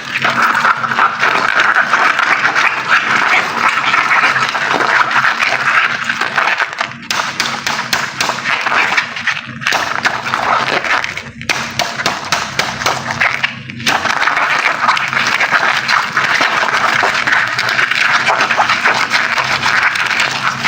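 Water gushing and splashing out of cut water balloons: a steady, loud rush that breaks off briefly a few times.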